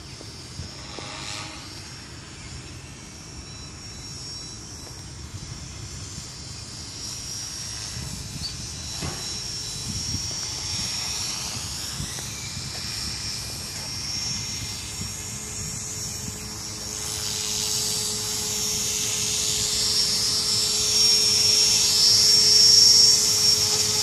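Align T-Rex 450 Pro flybar electric RC helicopter in flight: the high whine of its brushless motor, gears and rotor grows steadily louder as it comes in close. A steady tone joins about a third of the way in and holds its pitch, the head speed fixed by the ESC governor.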